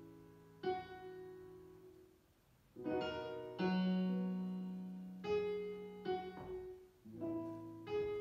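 Digital piano playing slow chords in a piano voice. A new chord is struck every second or two, and each rings on and fades slowly.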